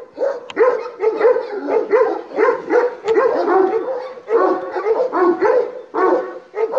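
Kangal shepherd dog barking hard and repeatedly, about two barks a second, up at a drone hovering overhead: an aggressive, defensive reaction to the drone.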